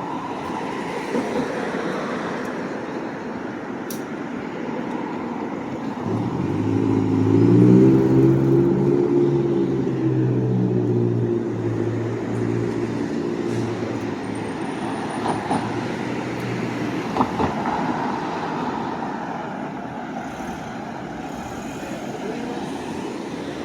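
Street traffic noise, with a motor vehicle's engine passing close by: a low, steady engine hum swells about a quarter of the way in and holds for roughly ten seconds before fading.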